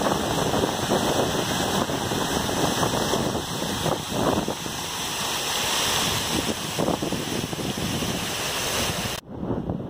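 Water jets of a large fountain splashing steadily into its stone basin, cutting off suddenly near the end.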